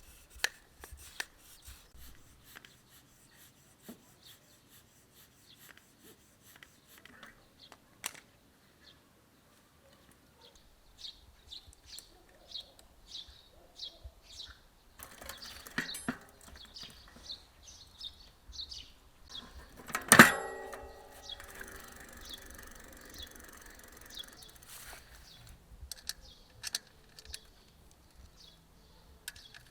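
Small clicks and handling noises with birds chirping, and one loud sharp knock about two-thirds of the way in that rings briefly.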